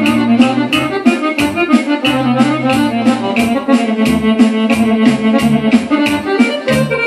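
Korg Pa-series arranger keyboard playing a fast Balkan folk dance tune, a quick accordion-voiced melody over the keyboard's automatic bass and an even, rapid drum beat.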